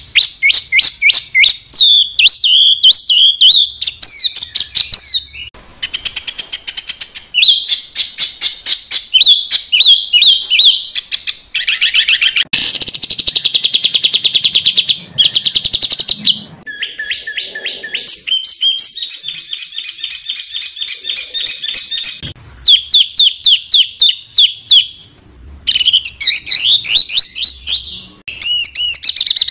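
Songbird song made of 'tembakan rapat' phrases: dense, rapid-fire trains of repeated high notes and fast trills. It switches abruptly from one phrase type to another every few seconds, as in spliced-together recordings.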